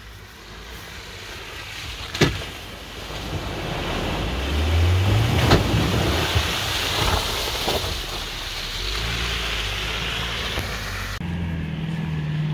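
New Land Rover Defender driving through a muddy water splash: water sloshing and spraying around the wheels while the engine climbs in revs about four seconds in, with two sharp knocks. Near the end, the engine runs steadily as the Defender crawls up a rutted bank.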